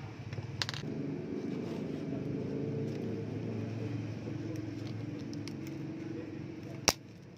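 A steady low rumble of background noise, with a light click about half a second in and one sharp, loud click near the end, after which the rumble drops away.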